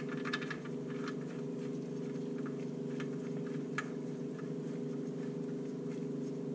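Steady low hum with a few faint metallic clicks and taps as the oil drain plug is threaded back into the oil pan by hand.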